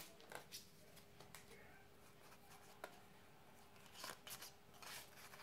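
Near silence, with faint rustles and soft flicks of trading cards as they are pulled from a booster pack and thumbed through by hand, a few of them close together near the end.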